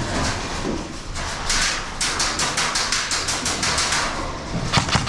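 Airsoft electric guns (AEGs) firing full-auto bursts, about ten shots a second: one burst of nearly two seconds starting about two seconds in, and a closer, heavier burst starting near the end.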